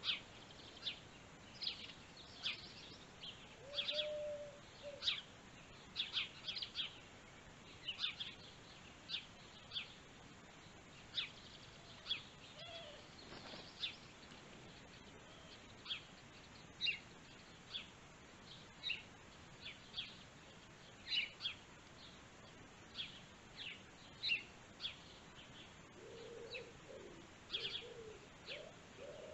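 Small birds chirping in short, high calls about once a second, with a dove cooing low once about four seconds in and again near the end.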